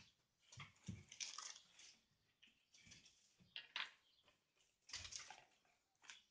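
Faint rustling and crinkling of plastic and paper ration packaging being handled and opened, in several short bursts.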